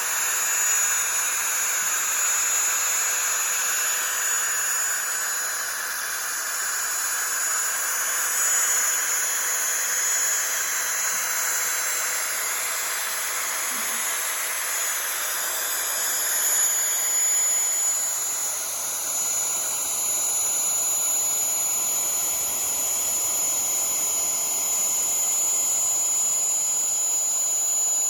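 Desktop CNC router spindle running steadily with a constant high whine while a 1/8-inch up-cut bit mills 2 mm aluminium sheet, under a continuous hiss of cutting noise.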